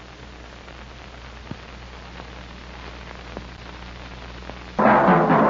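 Steady hiss and low hum of an old film soundtrack, with a couple of faint clicks. Loud music with drums cuts in suddenly near the end.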